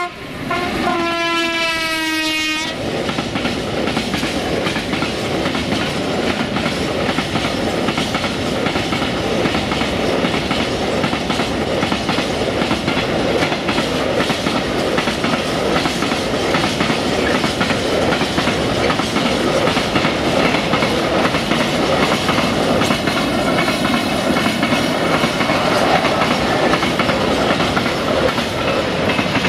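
A 060-DA (LDE2100) diesel-electric locomotive's horn sounding, its pitch falling slightly as it passes, cutting off about two and a half seconds in. Then a long train of loaded tank wagons rolling steadily past, wheels clattering over the rail joints.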